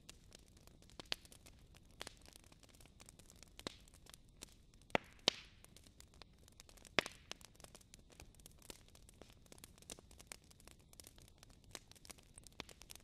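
Fire crackling: irregular sharp pops and snaps over a low hiss, with a couple of louder pops around the middle.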